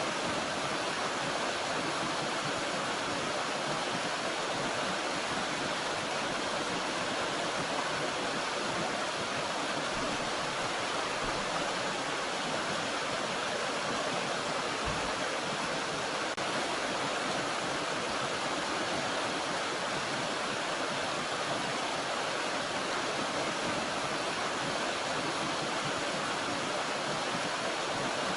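Steady, unbroken rush of running water from a small mountain stream and waterfall.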